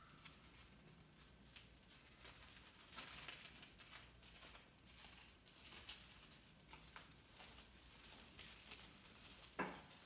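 Near silence with faint, scattered crunches and ticks of mule deer stepping on gravel, and one slightly louder short sound near the end.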